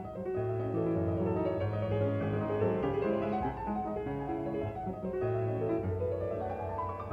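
Background solo piano music in a classical style, with a run of notes climbing upward near the end.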